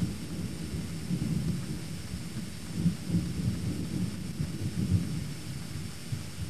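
Thunder rumbling low and unevenly, swelling louder about three and five seconds in.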